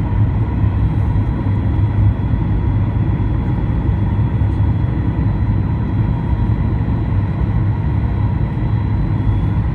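Steady cabin noise inside a Boeing 737-800 on its landing approach: an even low rumble of the CFM56 engines and airflow, with a few faint steady whining tones above it.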